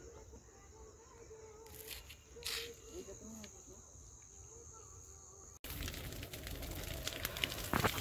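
Quiet field ambience with a steady high-pitched insect trill and faint distant voices. About five and a half seconds in it cuts to louder rushing noise with sharp crackles, as of dry stubble burning.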